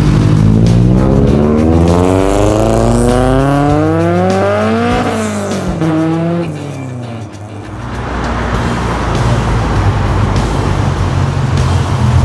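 Car engine accelerating, its pitch climbing steadily for about five seconds, then falling away as it eases off, followed by a steady rushing noise.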